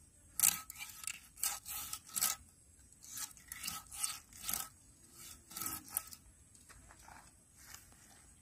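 Hilsa fish being cut with a blade: a run of short rasping, scraping strokes, about two a second for some six seconds, then a couple of fainter ones.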